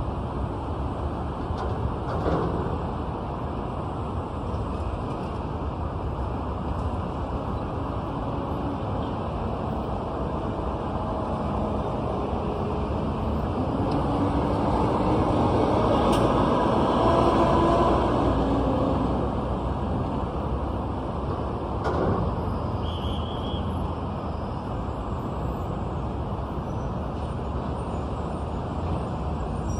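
City street traffic heard from above: a steady hum of passing cars. About halfway through, a heavier vehicle's engine swells louder and fades away. There are a couple of brief knocks.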